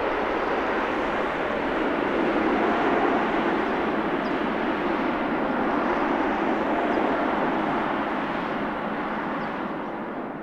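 Jet engines of an Airbus A320 at climb power just after takeoff, a steady rush of noise that fades slightly toward the end and then cuts off abruptly.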